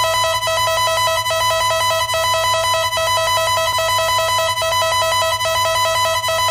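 Electronic emergency-alert alarm: two steady tones sound together with a fast pulsing flutter, and there is a brief dip in level a little under once a second.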